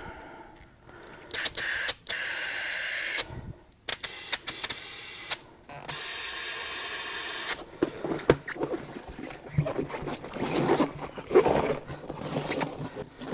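Compressed air hissing into a tire's inner tube through an air chuck, in two spells of a few seconds each with clicks as the chuck goes on and off. Then rubbing and scraping of the rubber tire being worked onto the wheel rim.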